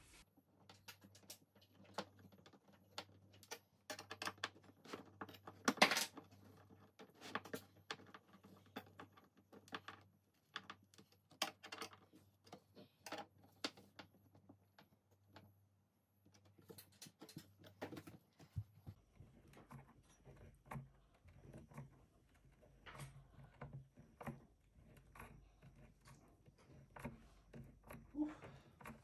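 Irregular small clicks, taps and knocks of a metal rail being handled against white furniture panels and screwed in with a hand screwdriver during flat-pack assembly. The loudest knock comes about six seconds in.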